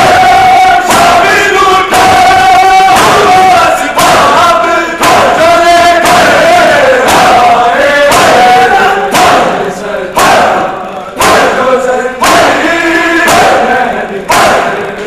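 A crowd of men chanting a Muharram noha in unison, with loud hand strikes on bare chests (matam) landing together at a steady pace of about one a second.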